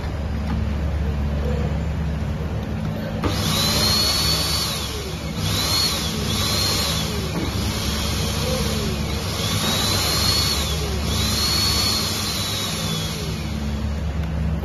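Suction motor of a ZLC-2000 vacuum seed counter being switched on and off for a quality test. About five times from a few seconds in, a whine rises as it spins up, holds, then falls away, over a rush of air, with a steady low hum underneath.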